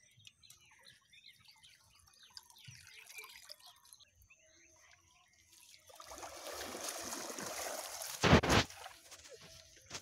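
Shallow water trickling and sloshing around a wading man's legs, then water pouring and draining through the mesh of a push net as it is lifted out, with one short, loud burst of noise about eight seconds in.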